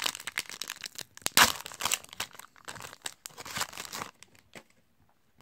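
Foil wrapper of a Panini Prizm basketball card pack being torn open and crinkled by hand. It is a run of crackling and ripping with the loudest tear about a second and a half in, dying away about four seconds in.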